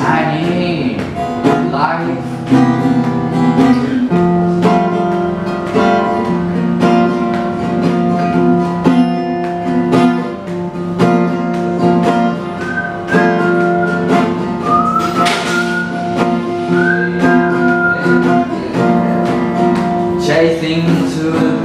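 Cutaway acoustic guitar strummed in a steady rhythm through an instrumental break between sung lines. For a few seconds past the middle, a high held melody line with small slides sounds over the strumming.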